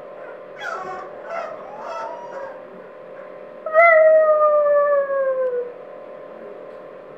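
Boxer puppies crying: several short, high cries, then about four seconds in a single long howl that slides slowly down in pitch for about two seconds.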